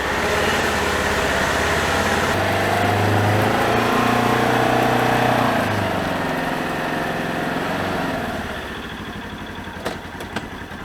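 Polaris Ranger side-by-side's engine running, climbing in pitch about two seconds in as it pulls away, then fading after about eight seconds as the machine drives off.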